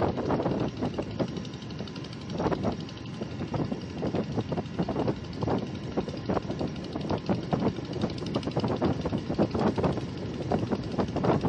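A bhutbhuti's single-cylinder diesel engine chugging with a rapid, uneven knocking beat.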